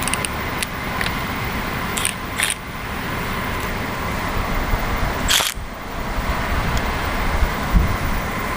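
Steady background hiss with a few light clicks and one sharper clack about five seconds in, from engine parts and tools being handled during disassembly.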